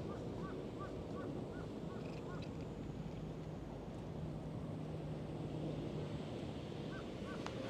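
Outdoor ambience: steady wind noise on the microphone with a low, even hum through the middle. A quick run of short high chirping calls comes in the first second, with two more near the end.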